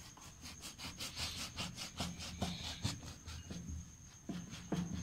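Serrated bread knife sawing horizontally through a baked chocolate sponge cake, in quick back-and-forth strokes, several a second.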